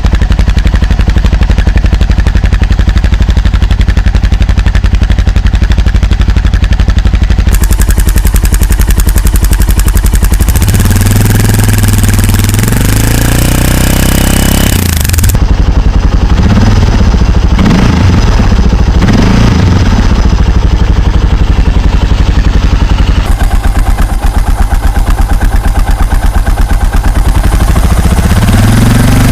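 Suzuki DR 650 single-cylinder four-stroke engine through an aftermarket exhaust, idling with a loud, fast beat, then revved: one long rev about ten seconds in, a few short throttle blips after it, and another rev near the end.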